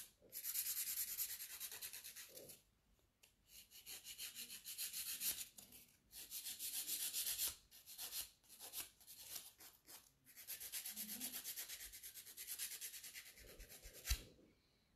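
Hand nail file scraping back and forth over a sculpted gel nail to refine its shape. It goes in quick strokes of about four or five a second, in several bouts with short pauses, and there is one sharp tap near the end.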